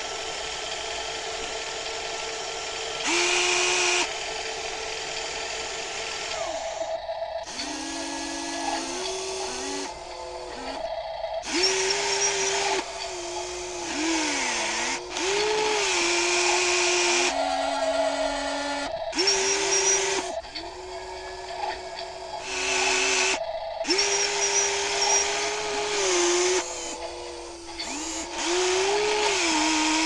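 Electric motors of a WL-Model RC excavator whining in stop-start bursts of a second or two as the boom, arm and bucket move, the pitch rising and falling as each motor speeds up and slows down. A steadier hum runs through the first few seconds.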